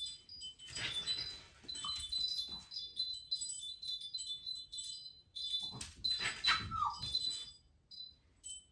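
Wind chimes tinkling in clusters of high ringing tones, with a dog's noisy sounds twice, about a second in and again near six seconds. The second ends in a short falling whine.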